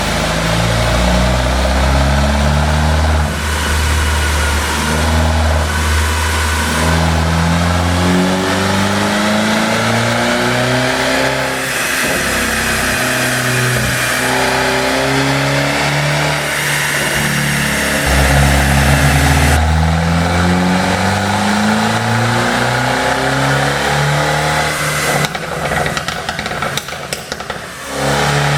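Mercedes-Benz W213 E300's turbocharged four-cylinder engine revving and pulling up through the rev range several times, with an exhaust pop-and-crackle tune. A rapid run of crackles and pops comes near the end as it comes off the throttle.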